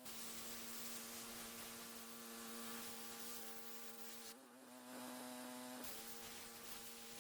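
Gas-engine pressure washer running with a steady buzzing drone; about four seconds in its tone shifts and the spray hiss drops for a second or so, then it settles back.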